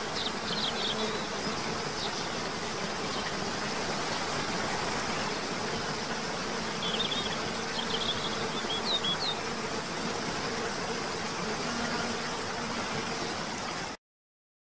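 Nature ambience: the steady rush of a waterfall with a low insect buzz, and short high bird chirps near the start and again a little past the middle. It cuts off suddenly near the end.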